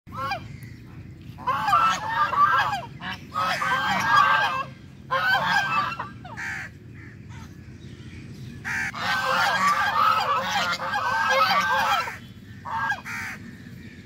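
A flock of domestic geese honking, many calls overlapping in several bursts of one to three seconds with short pauses between them.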